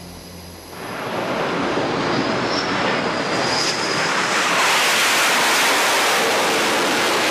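F/A-18 jet fighter on approach to a carrier deck, its twin engines' jet noise coming in about a second in and building to a loud, steady rush.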